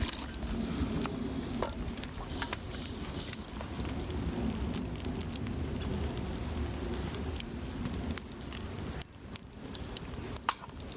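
Outdoor campsite ambience: a steady low rumble with scattered sharp crackles, and a few short series of high chirping bird calls about two seconds in and again past the middle.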